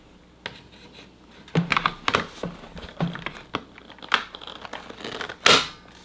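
Hard plastic parts of a VAKYOU VC001 cordless stick vacuum's filter and dust cup being handled and fitted back together: a string of separate knocks and rattles, then a louder, sharp click near the end as the filter snaps into place.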